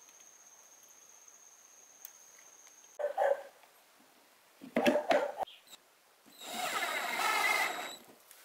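Hitachi cordless drill/driver running for about a second and a half near the end, driving a screw to fix the terminal plate to the subwoofer cabinet. A few short knocks come before it.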